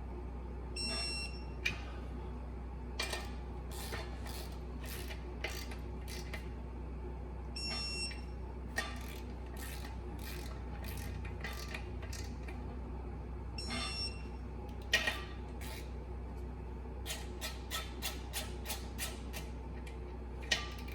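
Clutch pressure-plate bolts being run down in a star pattern: three short, high power-tool whines, each a bolt being driven, among scattered tool clicks and taps. A quicker run of clicks comes near the end, over a steady low hum.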